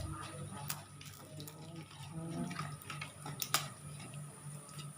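Kitchen sounds of fish soup being cooked: scattered sharp clicks and knocks of utensils and cookware over a watery sound, with the loudest click about three and a half seconds in.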